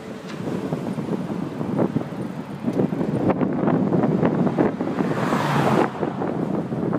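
Wind buffeting the microphone of a camera riding along on a moving bicycle, a rough, steady rumble. About five seconds in, a brighter rushing hiss swells and falls away over about a second as a motor vehicle passes on the road alongside.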